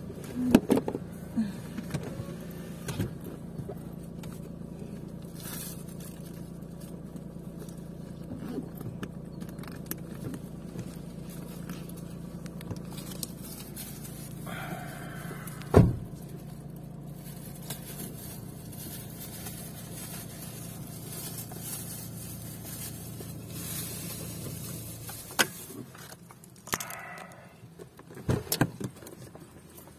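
Inside a car moving slowly on a dirt track: a steady low engine and road hum with scattered knocks and rattles, one sharp thump about halfway through. The hum falls away about five seconds before the end, followed by a few more knocks.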